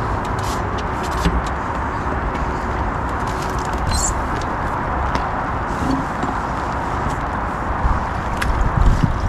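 Steady low rumbling background noise, with a few faint clicks scattered through it.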